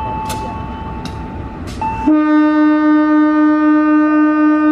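Diesel-electric locomotive (KAI CC206) rolling into the station with a low rumble and a few clicks, then sounding its horn about two seconds in: one long, steady low blast that cuts off sharply after nearly three seconds.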